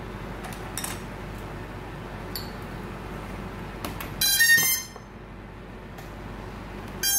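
Buzzy electronic beeps as an FPV quadcopter is powered up to link with a TBS Crossfire transmitter: one loud beep about four seconds in, another starting at the very end, over a steady low hum with a few faint clicks before.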